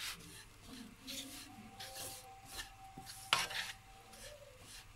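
Wooden spatula scraping and stirring gram flour and ghee around an iron kadhai in repeated rubbing strokes, with one louder stroke about three seconds in. This is the besan being dry-roasted (bhunai) in ghee.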